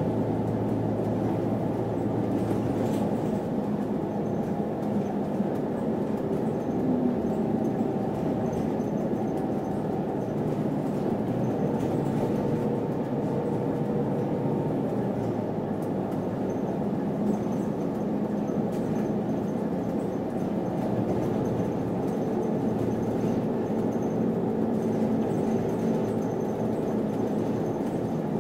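Steady running rumble of a moving city bus, heard inside the cabin: engine and road noise with faint shifting engine tones.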